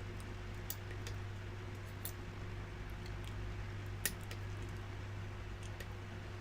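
Scattered faint metallic clicks, a few per second or less, of lock picks working the pins of a challenge lock, over a steady low hum.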